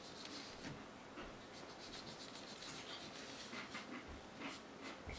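Fingers scratching and rubbing on a hardwood floor: a run of faint, irregular scratches, quickening in the second half.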